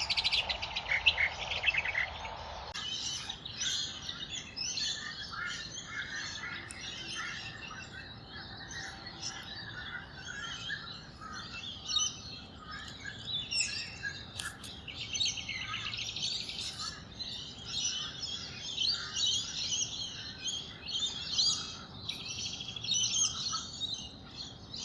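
Many small birds chirping and trilling at once in a dense, unbroken chorus of wetland birdsong.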